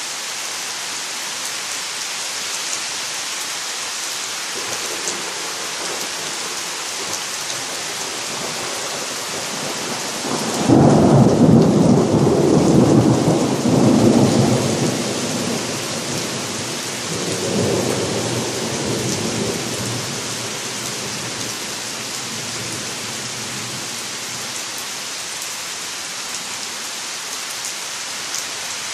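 Rain falling steadily, with rolling thunder that builds slowly. The thunder rumbles loudest for a few seconds about ten seconds in, swells again more weakly a few seconds later, then dies away into the rain.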